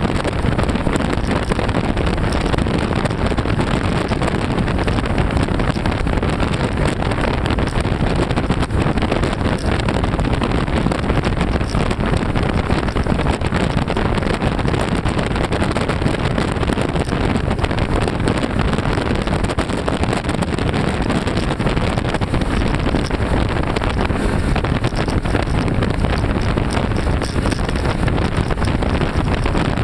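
Fishing boat running at speed on three outboard motors: a steady, loud rush of wind buffeting the microphone mixed with the engines' drone and the hiss of water.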